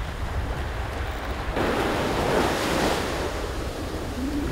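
Surf breaking and washing up the beach, with wind buffeting the microphone; a wave rushes in about a second and a half in and dies away about a second later.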